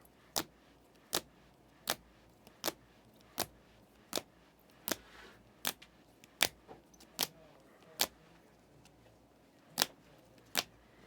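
Trading cards being flipped through one at a time, each making a sharp click, about one every three-quarters of a second, with a short pause near the end.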